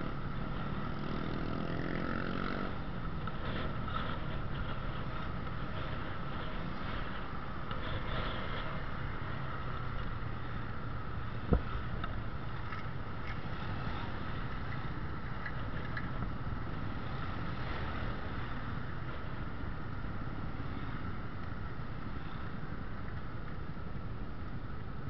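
Motor scooter and surrounding motorbikes running at low speed in slow traffic: a steady engine drone with road and wind noise. Near the start an engine revs up briefly, and about halfway through there is a single sharp click.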